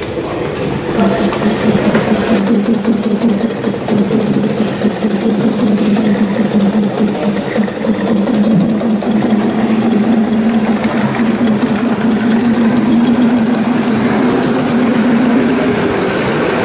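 Gauge 1 live-steam model of a New York Central Hudson locomotive under way, its exhaust chuffing in a fast, even beat as it runs over the track pulling a train of boxcars. It gets louder about a second in as it gets going.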